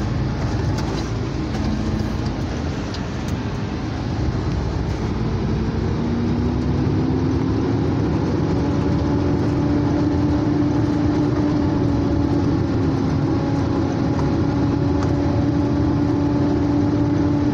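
Heavy truck's diesel engine running, heard from inside the cab over low road rumble; its hum rises in pitch about five seconds in as the truck speeds up, then holds steady and a little louder.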